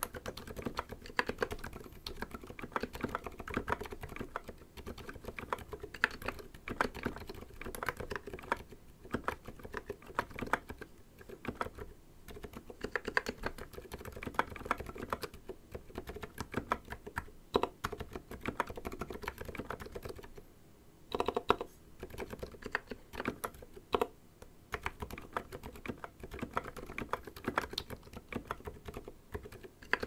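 Typing on a Hansung TFG ART mechanical keyboard fitted with Gateron Aliaz 60g switches and SA Oblivion keycaps: a steady, fast run of keystroke clacks, with a brief pause about two-thirds of the way through.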